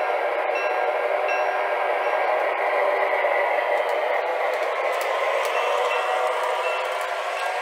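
MTH Rail King O-gauge RS-3 diesel model locomotive running on three-rail track: its Proto-Sound 2 speaker plays a steady diesel engine sound, mixed with the model's motor and wheel noise.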